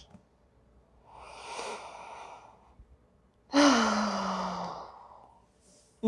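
A woman exhales heavily, then lets out a long voiced sigh that falls in pitch, reacting to a chiropractic neck adjustment.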